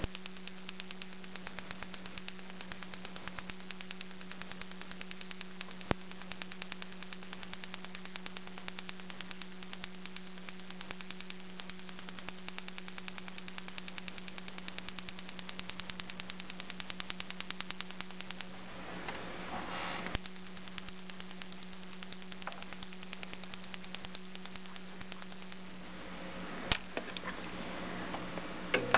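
Battery-powered electronic BBQ grill igniter sparking: a rapid, even train of sharp clicks, over a steady low hum.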